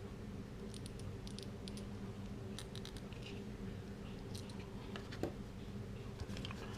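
Small resin model-kit parts being handled and separated by hand, giving scattered light clicks and taps, over a faint steady hum.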